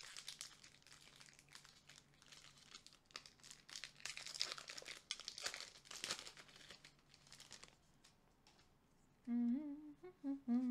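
A Pokémon booster pack's foil wrapper crinkling and tearing as it is opened by hand, in an irregular run of scratchy crackles that dies away about three-quarters of the way through. Near the end a person hums a few short notes.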